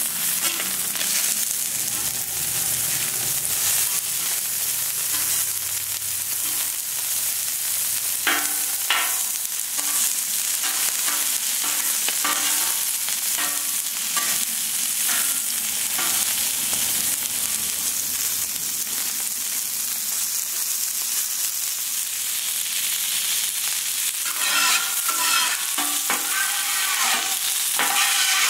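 Sausage patties sizzling steadily on a hot steel Camp Chef flat-top griddle. Over the sizzle, a metal spatula scrapes and taps across the griddle as the patties are flipped, in clusters about eight seconds in, again a few seconds later, and near the end.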